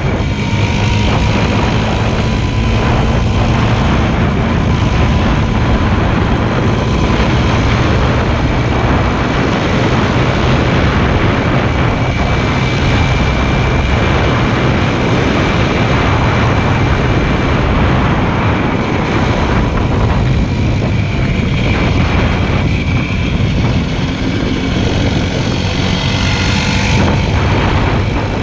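Motorcycle engine running steadily while riding, its note mixed with a loud, even rushing noise.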